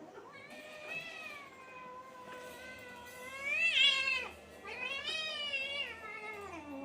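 Cat giving two long, drawn-out yowls, the first swelling louder toward its end and the second sliding down in pitch as it fades.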